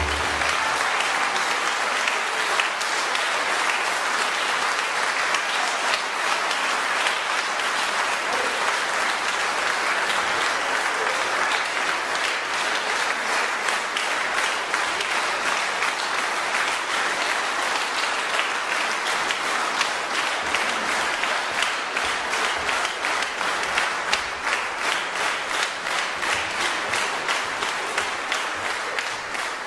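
A large concert audience applauding. The applause grows into more distinct, regular clapping in the second half.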